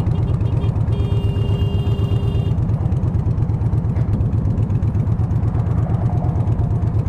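Motorcycle with a loud aftermarket exhaust idling, a strong, evenly pulsing low rumble. A horn sounds a steady tone for about a second and a half near the start.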